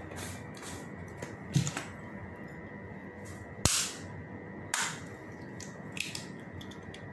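A few sharp taps and clicks as a hen's egg is knocked against a thin metal spoon to crack it open; the loudest is a single knock about halfway through.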